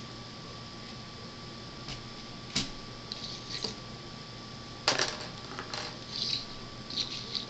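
A few sharp clicks and short rustles, the loudest about five seconds in, over a steady hiss with a faint high steady tone.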